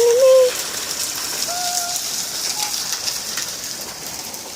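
Steady rain falling, a continuous hiss with spatters of drops hitting surfaces. A short, loud pitched sound comes right at the start, and two fainter short tones follow about a second and a half and two and a half seconds in.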